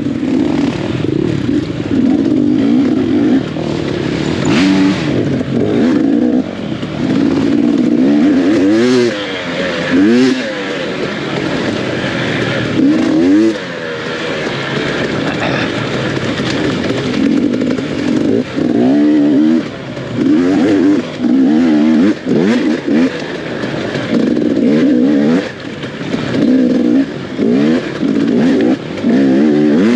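Off-road racing dirt bike engine revving up and down, the pitch climbing again and again as the throttle opens. In the second half the throttle is chopped and reopened in quick succession, about once a second.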